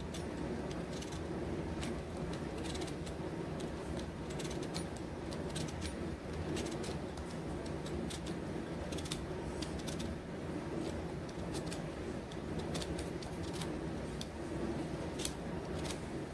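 Irregular light clicks and ticks of fingers handling garlic and chopped pieces on a plastic cutting board, over a steady low background hum.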